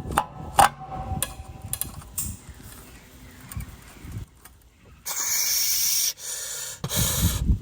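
Metal clinks and knocks as a bar is set on a seized rear hub bolt, then, a few seconds in, a loud hiss that comes in two bursts.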